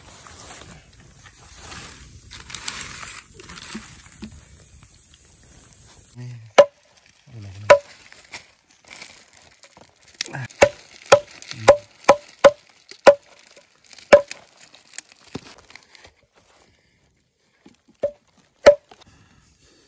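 A blade chopping raw squirrel meat and bone on a leaf: loud, sharp single strikes starting about six seconds in, two, then a quick run of about seven, then two more near the end.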